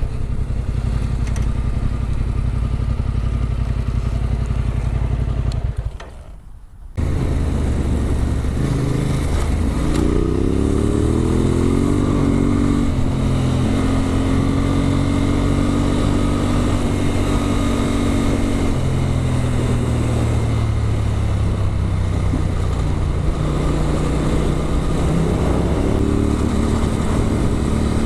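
Motorcycle with an Arrow exhaust running under way: a steady engine note that drops away for about a second around six seconds in, then climbs in pitch in steps as it accelerates up through the gears, settling into steady cruising.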